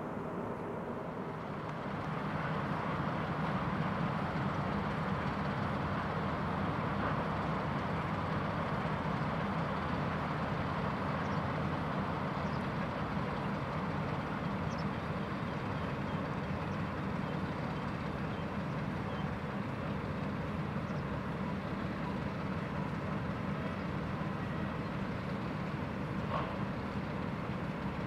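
Steady low rumble of a distant diesel freight train, growing louder about two seconds in.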